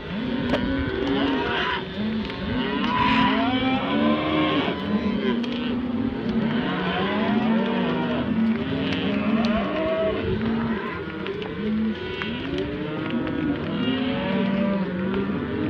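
A herd of cattle mooing and bellowing, many calls overlapping one another without a break.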